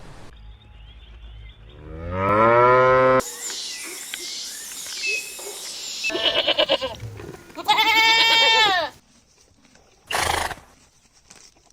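Farm animals calling in a string of cut-together clips: a long call rising in pitch about two seconds in, then two more pitched calls in the second half, the first of them quavering. A short noisy burst follows near the end.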